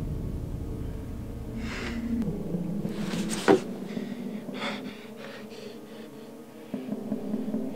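A person's heavy breaths and gasps, several short ones with the loudest and sharpest about three and a half seconds in, over a low steady drone.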